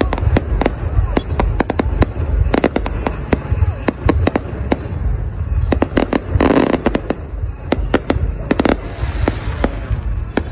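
Aerial fireworks bursting overhead: a dense, rapid run of sharp bangs and crackles, several a second, over a continuous low rumble, with a louder burst about two-thirds of the way through.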